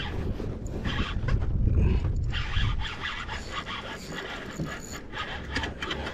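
Shimano Sahara spinning reel being wound in against a hooked fish, its gears running with a fast, close-set mechanical clicking and scraping. Wind rumbles on the microphone for the first few seconds, then drops away.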